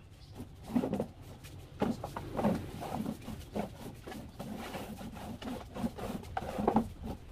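Hollow knocks of red plastic chairs being carried and set down at a table, with a dove cooing low and repeatedly, about twice a second, through the middle.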